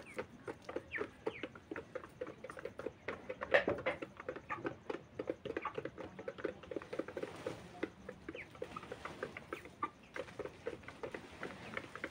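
Broiler chickens pecking feed from a feeder pan: rapid, irregular tapping of beaks several times a second, with a few short high calls among them.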